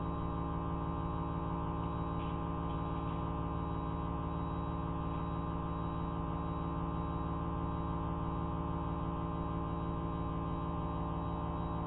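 Steady low machine hum with many evenly spaced overtones, with a few faint scratchy ticks about two to three seconds in. It is the robot arm and lab noise played back at quarter speed, which lowers its pitch.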